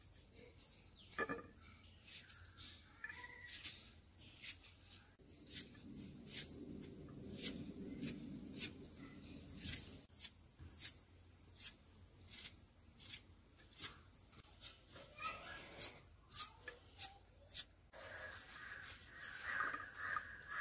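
Knife blade cutting through a red onion and then a tomato held in the hand, a crisp cut about every half second. Crows cawing join near the end.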